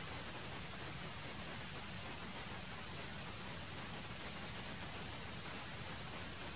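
Insects buzzing steadily in one unbroken high-pitched drone over a faint even hiss.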